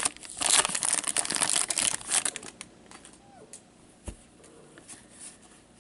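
A foil trading-card pack crinkling and tearing as it is opened by hand. Dense crackling for about two and a half seconds, then a few faint ticks and a soft knock about four seconds in.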